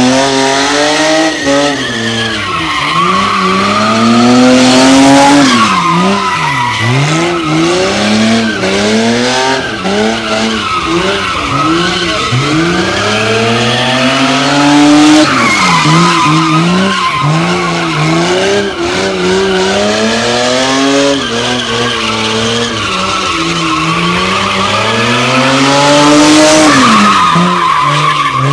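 A car engine revving hard, rising and falling again and again, while the rear tyres squeal and skid on concrete as the car drifts in circles.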